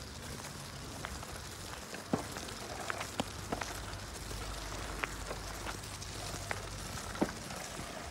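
Heavy battle ropes slapping and dragging on a dirt ground, with light irregular slaps about once or twice a second over a steady low hum.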